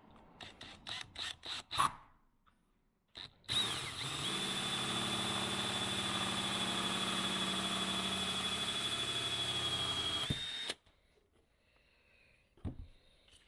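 A few sharp clicks, then a DeWalt cordless drill spinning a hole saw through a black plastic junction box. The drill winds up about three and a half seconds in, runs with a steady high whine for about seven seconds, and stops suddenly. A couple of faint knocks follow near the end.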